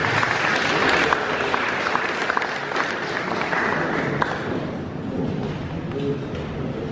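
Audience applauding, dying away after about four and a half seconds.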